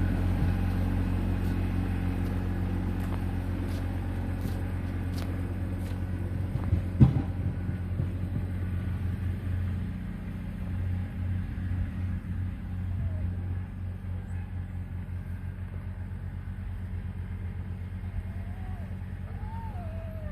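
Small farm tractor's engine running steadily during snow clearing, with a single sharp bang about seven seconds in. The engine sound gets quieter after about ten seconds.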